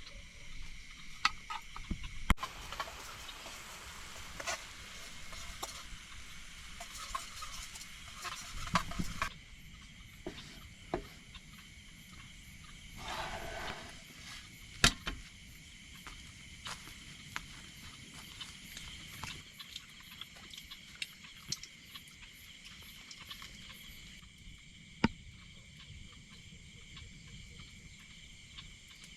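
Night insects chirping steadily in the background, with scattered sharp clicks and knocks. A rustling hiss fills roughly the first nine seconds.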